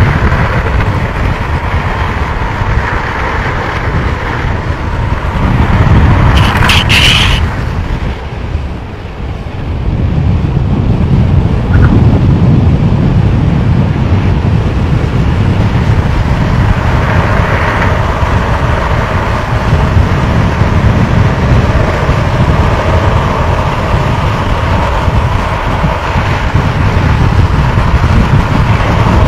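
Wind buffeting the microphone of a downhill longboarder at speed, over the steady rolling roar of longboard wheels on asphalt. A brief harsh hiss cuts in about seven seconds in.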